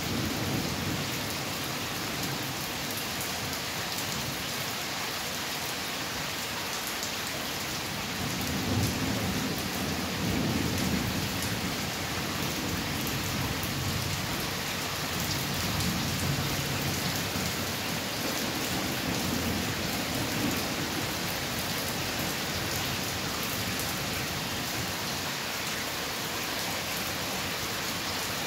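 Thunderstorm: steady, heavy rain falling, with low rolls of thunder swelling at the start, about eight seconds in, and again in the middle.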